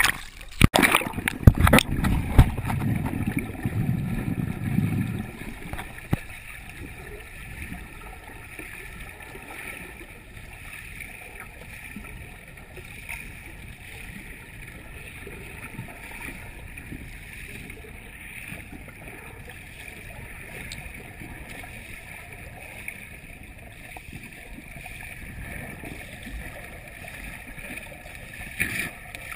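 Water splashing and sloshing against a waterproof action camera at a pool's surface for about the first five seconds, then a steady muffled hiss of underwater noise with the camera below the surface.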